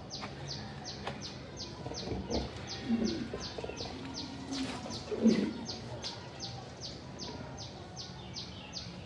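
A bird calling a rapid string of short, high, falling chirps, about three a second. A couple of louder low sounds come in about three and five seconds in.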